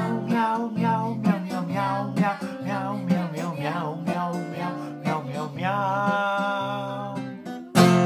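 Acoustic guitar strummed under a man's singing voice, the melody ending on a long held note. Near the end a final strum rings out and fades.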